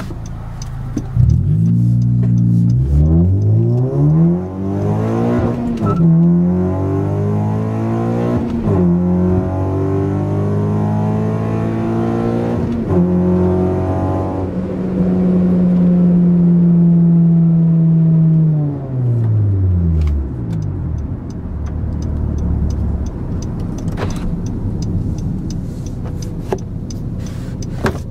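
2012 Honda Civic Si's 2.4-litre four-cylinder, fitted with a Tsudo exhaust, Skunk2 downpipe and Injen cold air intake, heard from inside the cabin during a hard acceleration pull. The engine note climbs in pitch again and again, dropping at each upshift, holds steady at speed, then falls away as the car slows.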